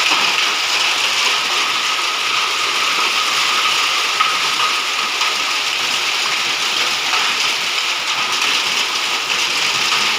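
A hailstorm with rain: hailstones and raindrops pelting down in a dense, steady clatter.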